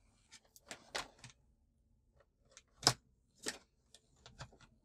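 Scattered light clicks and taps of a hand on the plastic bezel of a flat-screen LED TV, with one sharp click about three seconds in.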